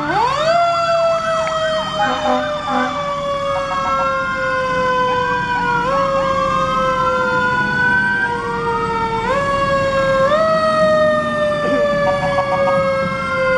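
Fire truck sirens sounding as the ladder truck passes. A deep siren winds up sharply at the start and then slowly sinks in pitch, picking up again several times, while a higher siren wails up and down over it.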